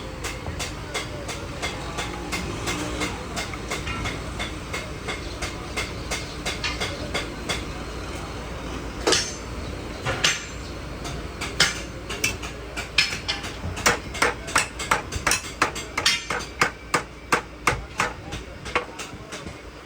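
Hammer blows on metal, light and scattered at first, then sharper and quicker, about two to three a second, through the second half, over a steady low hum.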